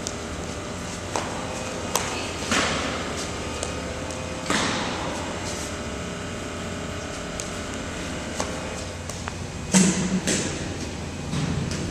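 Sharp cracks of baseballs being struck and caught, echoing through a large hall, over a steady low hum. The two clearest ring out about two and a half and four and a half seconds in, with a louder cluster near ten seconds.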